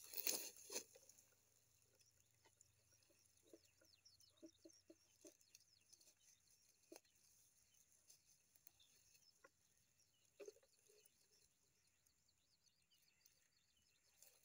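Faint low cooing notes of spotted doves: a quick run of short notes about four seconds in and another louder note about ten seconds in. A burst of rustling at the start, and faint crackling of dry grass.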